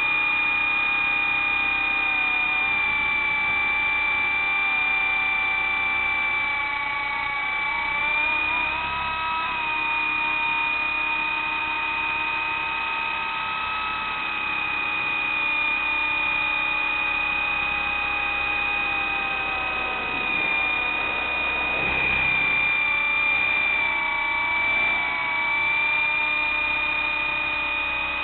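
Radio-controlled model helicopter running in flight: a continuous high-pitched motor and rotor whine that rises and dips slightly in pitch a few times as the throttle and load change.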